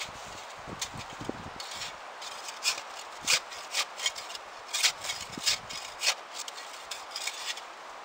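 Packed snow and ice being dug and scraped away from under a stuck Jeep: a series of short, irregular scrapes, roughly one or two a second.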